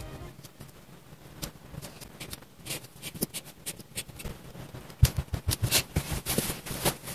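Close-up handwork on a paper journal: marker pen tips scratching and tapping on paper, paper and stickers being pressed and shifted, with a run of sharp clicks and taps from about five seconds in as pens are handled and set down.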